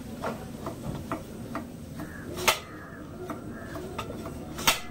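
Hand-operated tomato slicing press being worked: a run of light ticks about two a second, then two sharp clacks, one about halfway through and one near the end.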